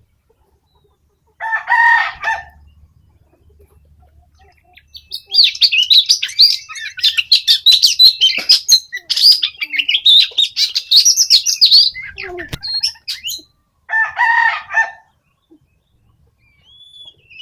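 Oriental magpie-robin (kacer) singing a rapid, varied warbling song for about seven seconds, from about five seconds in. A short harsh call comes about two seconds in and again near the end.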